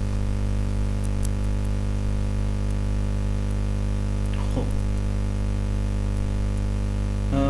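Steady electrical mains hum with a stack of even overtones, with a few faint clicks.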